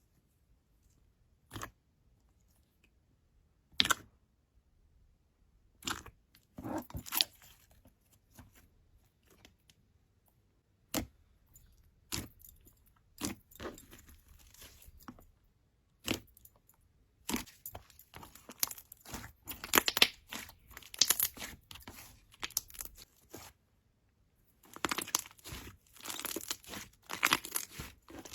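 Slime being squeezed and stretched by hand, giving crackling and popping clicks. The clicks are sparse at first and come in dense bursts in the second half.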